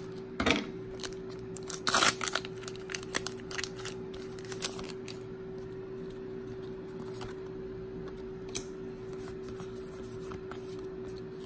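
Foil Pokémon booster pack wrapper being opened and crinkled, with several sharp crackling rustles in the first five seconds, then softer handling of the cards as they are slid out and fanned. A faint steady hum runs underneath.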